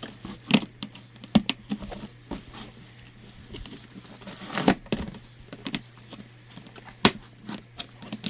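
Plastic parts being handled and fitted together by hand: irregular clicks, taps and knocks with some crinkling, one sharper tap near the end.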